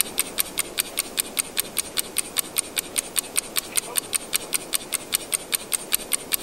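Fast, perfectly even mechanical clicking, about five clicks a second, over a steady hiss.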